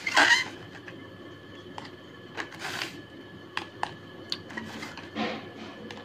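Handling noise: a loud rustling scrape at the start, then scattered light clicks and short scrapes of hard plastic toy train carriages being set down and pushed on a tiled floor.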